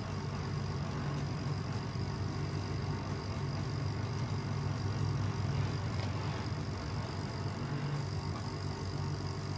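Steady low hum over a hiss of background noise: continuous room ambience.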